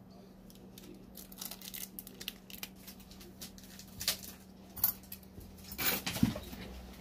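Metal tweezers and a bare circuit board being handled: light clicks and taps, a few sharper ticks, and a louder clatter and rustle near the end as the board is laid down on paper tissue. A steady low hum runs underneath.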